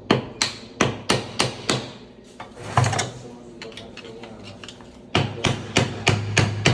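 A run of sharp knocks, about three a second, that stops after about two seconds, gives one louder knock, and starts again near the end, over a faint, steady low hum.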